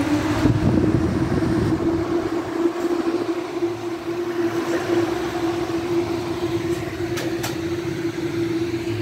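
Electric extractor fan running directly off a 100-watt solar panel, a steady hum with an even rush of air. There are a couple of faint clicks near the end.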